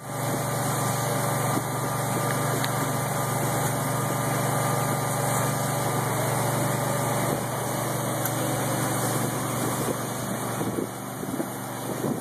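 Steady drone of a John Deere 9670 STS combine's engine running, dipping slightly in level near the end.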